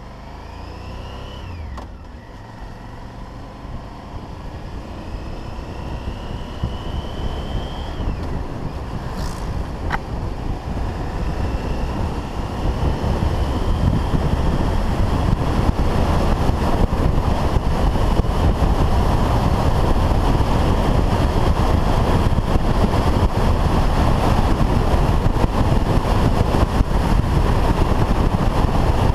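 Motorcycle engine accelerating through the gears, its pitch climbing in each gear and dropping back at shifts about two and eight seconds in. As speed builds, wind rushing over the helmet-mounted microphone grows louder and drowns out most of the engine.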